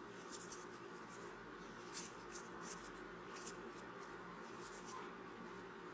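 Faint, irregular soft ticks and rustles of a metal crochet hook pulling cotton yarn through stitches, a few times a second, over a steady low hum.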